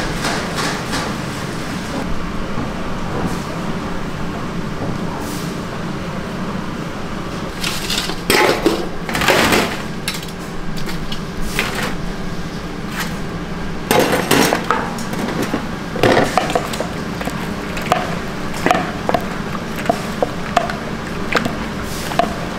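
Metal cookware clattering and scraping in bursts: a steel wok, a wire fryer basket and a metal spatula knocking together. Underneath runs a steady low hum of kitchen equipment.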